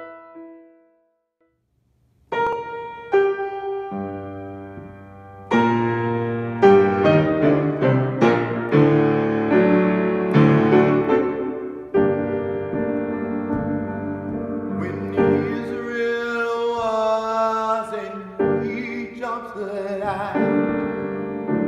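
Grand piano played slowly in sustained chords, starting about two seconds in after a brief silence. A man's singing voice comes in over the piano near the end.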